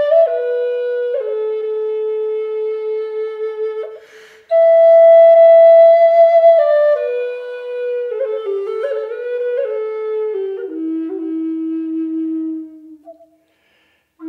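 Background music: a slow solo flute melody of held notes, with a short breath break about four seconds in and a brief pause near the end.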